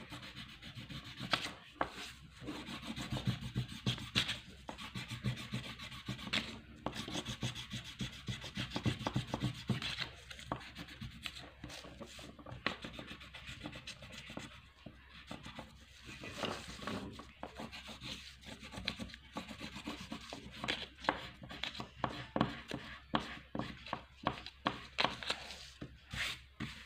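Wax crayon rubbed back and forth on paper, colouring in: quick scratchy strokes in runs with short pauses between them.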